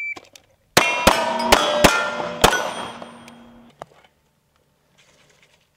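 Five pistol shots in quick succession, with steel targets clanging and ringing after the hits. The ringing dies away about a second after the last shot.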